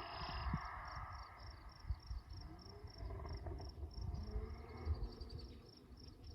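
Faint crickets chirping in a steady, regular pulse, a few chirps a second, over a low, uneven rumble.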